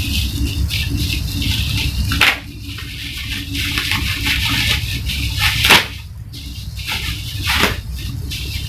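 Bubble wrap crinkling and rustling as it is pulled apart by hand, with three sharper crackles, over a steady low hum.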